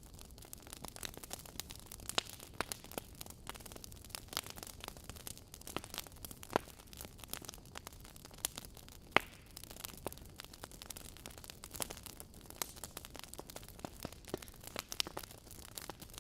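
Wood fire burning in a fireplace: irregular crackles and pops from the burning logs over a soft hiss, with a few sharper pops about 2, 6.5 and 9 seconds in.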